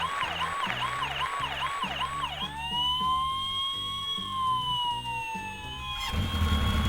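Electronic siren yelping fast, about three up-and-down whoops a second, then switching to one long slow wail, over background music that grows louder near the end.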